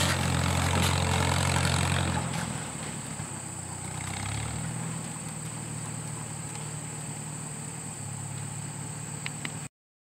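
1958 Farmall 350's four-cylinder gasoline engine running steadily under way. The sound drops in level after about two seconds as the tractor pulls off, the engine note shifts about four seconds in, and the sound cuts off abruptly near the end.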